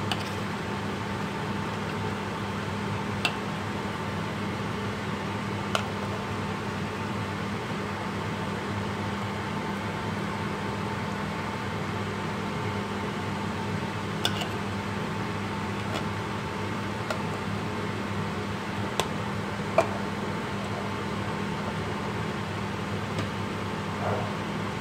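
Steady hum of an electric fan with a low drone. Over it come about half a dozen sharp, scattered clinks of a metal ladle knocking against a stainless steel pot during stirring.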